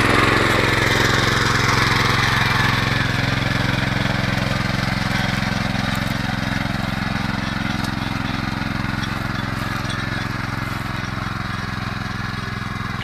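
Datsu walk-behind rotary tiller's engine running steadily under load as its tines work the soil, growing gradually fainter as it moves away.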